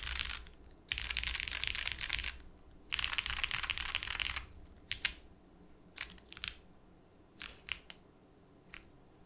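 Mechanical keyboard with Cherry MX Brown tactile switches on a polycarbonate plate, under GMK keycaps: three fast runs of keystrokes rolled across the home row (asdfghjkl), each about a second long, then a handful of single key presses spaced further and further apart.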